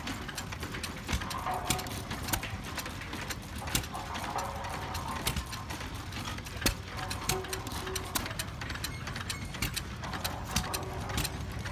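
Antique single-cylinder stationary gas engine running, driving a cement mixer by flat belt: irregular sharp clicks and knocks over a low steady rumble, with clattering from the mixer's gear drive.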